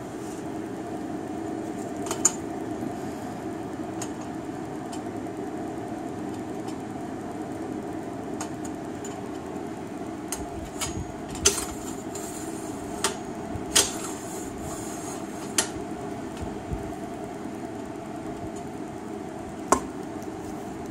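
Steady background hum, broken by a handful of short, sharp metallic clicks and knocks as a square steel-tube bracket is handled and held in place on an ATV's rear frame.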